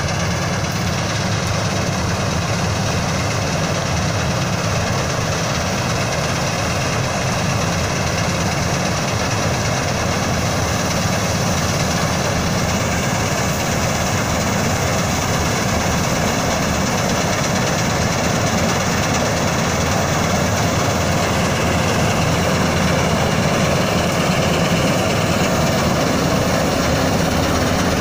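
Preet combine harvester running steadily while harvesting mustard, a continuous machine drone with no change in pace.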